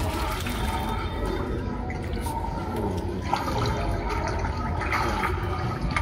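Water sloshing and splashing in a small pool as young Rottweiler puppies paddle around a person.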